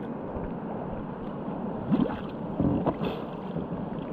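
Steady rush of flowing river water, with two short louder sounds about two and three seconds in.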